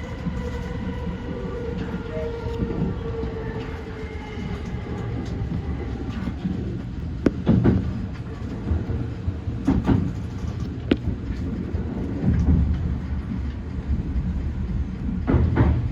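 E235-1000 series electric train running along the track: a steady rumble with a few sharp knocks as the wheels pass over track joints, and a faint tone that fades out in the first few seconds.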